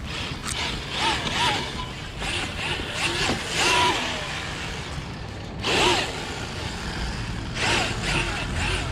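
Brushless motor of a 1/10 scale Redcat Gen8 Scout II RC truck whining in repeated short throttle bursts, its pitch rising and falling with each burst, with the tyres scrabbling over loose gravel and shell.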